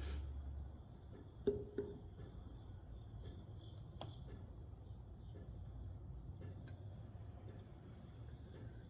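Quiet background: a faint steady high-pitched hum with a few light clicks and taps.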